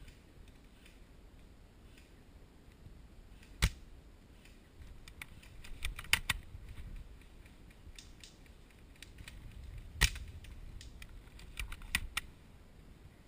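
Irregular sharp clicks and cracks: two loud single cracks about six seconds apart, with clusters of quicker, softer clicks between and after them.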